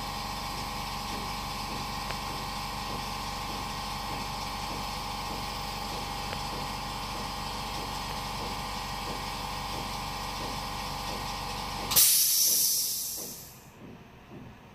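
Steady electrical hum and whine of bench equipment with a few held tones. It stops abruptly about twelve seconds in, and a loud short hiss follows and fades away over a second or so.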